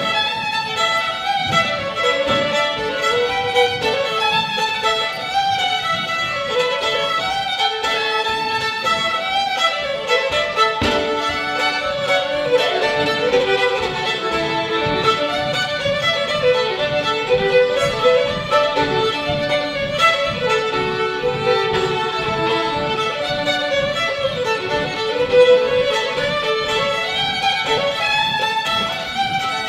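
Two fiddles playing a fast French Canadian reel together, a steady stream of quick bowed notes.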